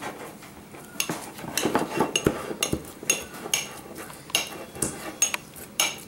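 Metal spoon clinking and scraping against a ceramic dog bowl as wet canned dog food and gravy are mashed up, in quick irregular clinks.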